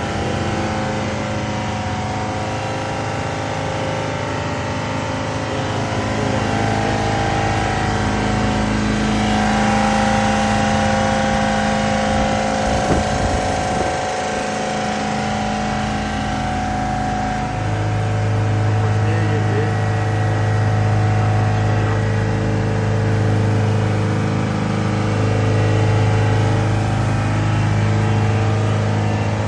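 Refrigeration compressor machinery running with a steady, loud hum made of several held tones. There is a short knock near the middle, and the low hum grows stronger a little past halfway.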